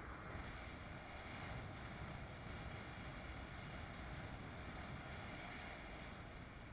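Steady wind noise on the microphone mixed with water rushing past a windsurfing board under sail.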